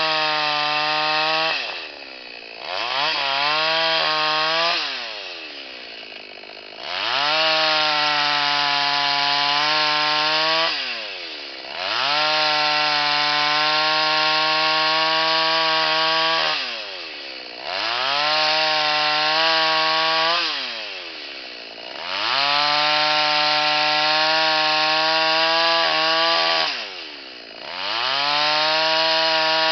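Two-stroke chainsaw, an Oleo-Mac GS650, running at full throttle while ripping a log lengthwise into boards. The engine is held high for four or five seconds at a time, then drops toward idle and revs back up, about six times.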